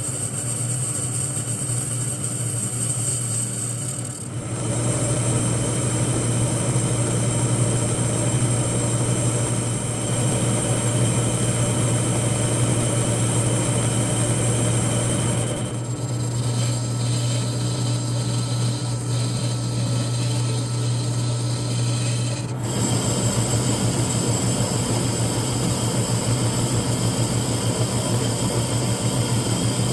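Metal lathe turning a cast zinc-alloy (ZA-12 Zamak) hand wheel: the lathe runs with a steady hum while the cutting tool takes off curling chips. The sound changes abruptly about four, sixteen and twenty-three seconds in.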